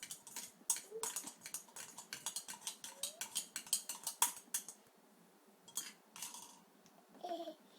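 Kitchenware clinking and clicking in a quick, uneven run for about four and a half seconds, then a couple of single clicks.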